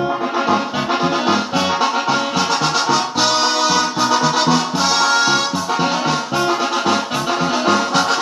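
Recorded norteño music: an accordion playing the melody over a steady pulsing bass beat, with no singing.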